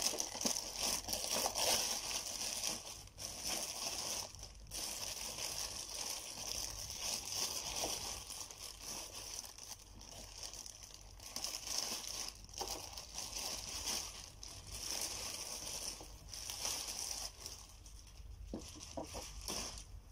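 Clear plastic protective bag crinkling and rustling almost without a break as it is worked off a sewing machine by hand.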